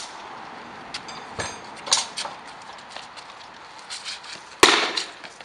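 Sword blows striking shields in a sparring bout: a sharp hit at the start, a few more over the next couple of seconds, and the loudest one near the end with a short ring after it.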